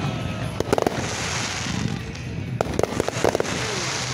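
Aerial fireworks shells bursting: sharp bangs in three clusters, with a hissing crackle between them.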